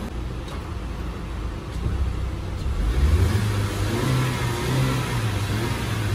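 A car engine running nearby: a low rumble that picks up about two seconds in, its pitch rising and wavering as it revs.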